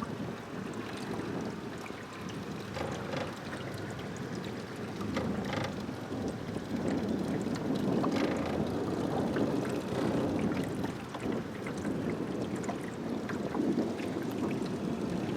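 Small fishing boat under way on a river: steady water noise and wind on the microphone, growing a little louder partway through, with a few light knocks.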